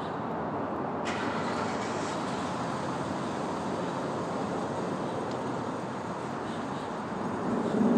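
Steady road traffic noise, an even rumble of passing vehicles, with a brighter tyre hiss joining about a second in.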